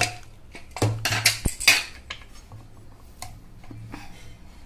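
Metal clanks of an aluminium pressure cooker's lid and a steel spoon against the pot. A cluster of sharp knocks comes about one to two seconds in, followed by a few lighter taps as the spoon scoops through the cooked chana dal.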